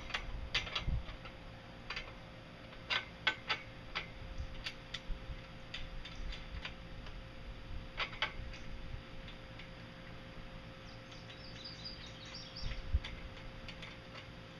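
Scattered light clicks and taps of hand tools and bracket hardware against an aluminium antenna mast as it is clamped in place, uneven in spacing. A brief run of faint high chirps comes about three-quarters of the way through.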